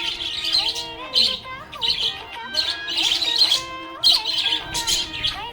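Budgerigars chirping in quick, dense bursts, over a background tune of held notes.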